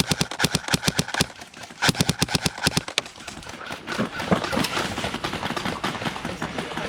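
Airsoft rifles firing on full auto in two rapid bursts of about ten shots a second, the first ending about a second in and the second lasting under a second, followed by quieter field noise.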